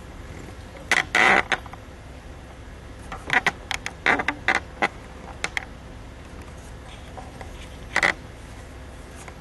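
Sharp clicks and knocks from bench equipment being handled: a cluster about a second in, a quick run of them a few seconds in, and one more near the end.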